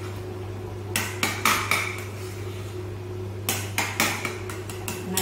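Metal spoon stirring a thick potato gravy in a stainless steel pan, clinking and scraping against the pan in two runs of quick strokes, one about a second in and another from about three and a half seconds in, over a steady low hum.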